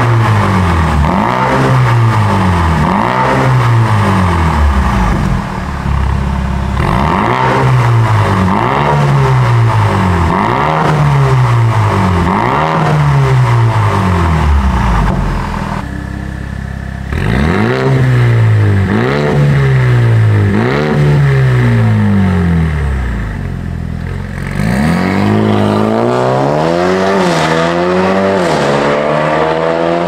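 Mercedes-AMG GLB35 four-cylinder turbo engine blipped again and again through an aftermarket catless downpipe and valved catback exhaust. It runs as short rises and falls in pitch, in three runs with brief breaks, the first with the exhaust valves closed in comfort mode. Near the end comes one longer rev that climbs steadily in pitch.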